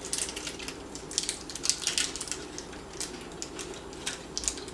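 Plastic snack wrapper crinkling and crackling in the hands, a run of quick irregular crackles.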